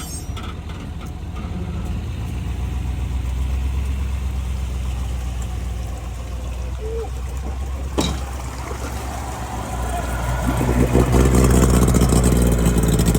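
Tow vehicle's engine running low and steady, then accelerating about ten seconds in as it pulls the boat trailer away; a single sharp knock about eight seconds in.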